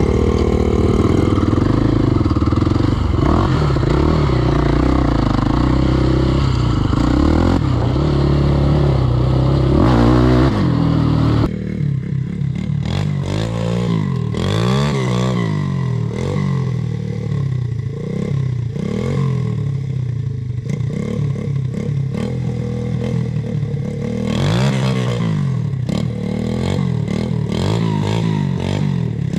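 Off-road vehicle engine under way on a rough sandy track. It runs loud and steady, cuts away abruptly about eleven seconds in, then revs rise and fall several times, with frequent knocks from the bumps.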